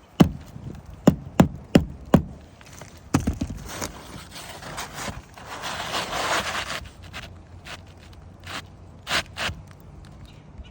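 Knocks and scraping from hand work on an asphalt shingle roof: five sharp knocks in the first two seconds, a short cluster of knocks about three seconds in, a scraping about four to seven seconds in, then a few more knocks near the end.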